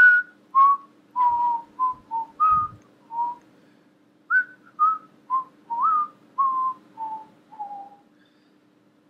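A man whistling a short, idle tune: about fourteen short notes with a brief pause partway, stopping near the end. A faint steady hum runs underneath.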